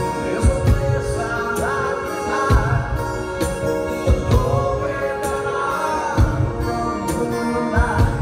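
Live acoustic band playing: strummed acoustic guitars and a bowed violin over a steady thumping hand-percussion beat, with a male lead vocal singing from about two seconds in.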